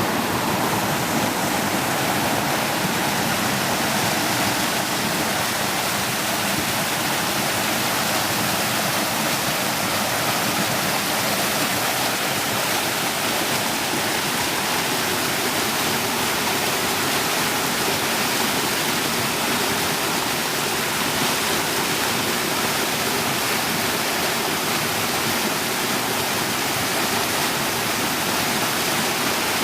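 Stream water rushing and splashing over rocks, a steady, even flow of loud water noise.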